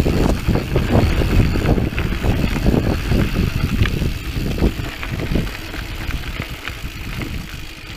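Mountain bike ridden fast over a rough dirt trail: a steady rumble of tyres and wind on the microphone, with irregular rattles and knocks from the bike over bumps, easing off toward the end.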